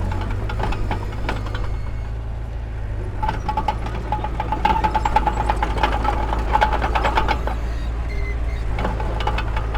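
Heavy earthmoving machinery working: an engine's steady low rumble under repeated metallic clanks and knocks. A pulsing whine joins in about three seconds in and fades near the end.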